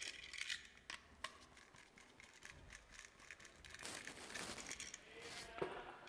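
Faint small clicks and light rustling of hands handling a wall switch and its stripped copper wires, with a few brief scraping rustles about four to five seconds in.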